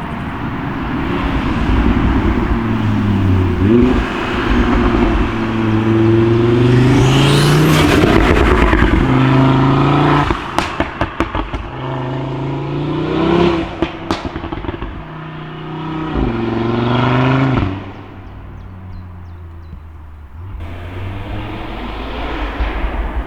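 Tuned Audi RS3 8V's turbocharged 2.5-litre five-cylinder accelerating hard in several pulls, its pitch climbing and then dropping away each time. On lift-off about ten seconds in, and again about fourteen seconds in, the exhaust fires a rapid string of pops and bangs from the remap and open downpipe.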